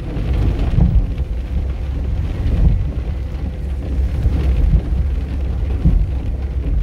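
Steady low rumble of a vehicle driving, with road and wind noise.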